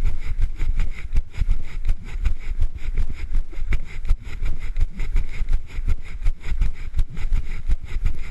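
Wind buffeting the microphone of a handheld camera carried on a run, a loud uneven rumble with many irregular knocks and jolts from the camera being handled.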